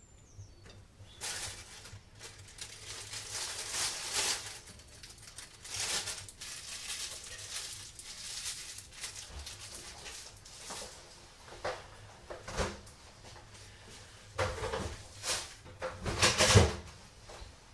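Thin plastic bag crinkling and rustling in the hands as shucked oysters are gathered into it for freezing, followed by a few sharper knocks and clatters near the end.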